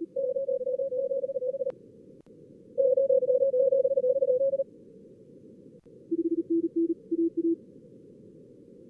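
High-speed Morse code (CW) from a simulated contest pileup, keyed tones over a steady receiver hiss. Two runs of code at a higher pitch come first, then a shorter run at a lower pitch about six seconds in, the two pitches belonging to the two radios being worked in turn.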